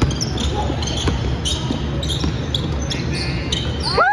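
Basketball game sounds in a hall: a ball bouncing on the court and sharp knocks from play, over a steady rumble of hall noise. A loud tone rises right at the end.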